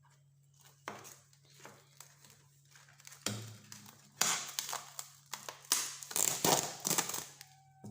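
Plastic rustling and crinkling in several short bursts as something is covered and handled, over a faint steady low hum.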